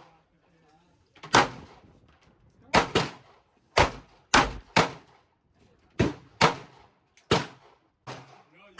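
Gunshots at a shooting range: about nine sharp, loud shots at uneven spacing, some in quick pairs, each with a short echoing tail.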